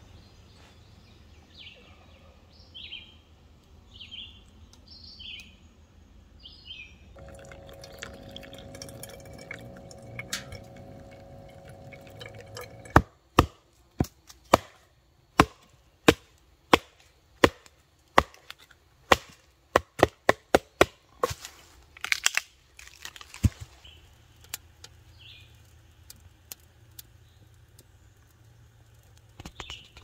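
Bushcraft knife being batoned into a small log with a wooden stick to split it: a run of sharp wooden knocks, at first about one a second, then quicker near the end.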